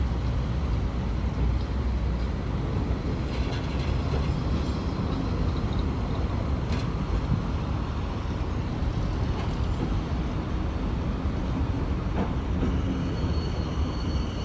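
LM-99AVN tram approaching along the rails, a steady rumble with a thin, high steady tone joining near the end.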